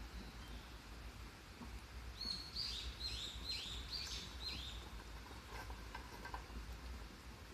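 A songbird sings one phrase of about six quick, high, downward-sweeping notes, starting about two seconds in, over a steady low background rumble.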